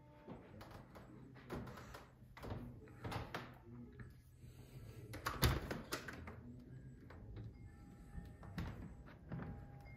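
A house's front door being unlatched and pulled open, with a string of knocks and clicks and a loud thunk about halfway through.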